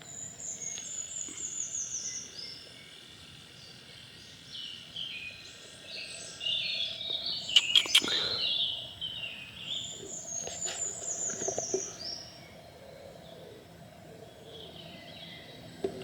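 Woodland birdsong: one bird twice sings a high phrase of quick notes that falls in pitch over about two and a half seconds, with other birds chirping in between. A few sharp clicks come about eight seconds in.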